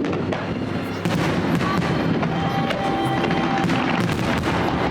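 Fireworks shells bursting and crackling in quick succession, getting louder about a second in, with music playing alongside.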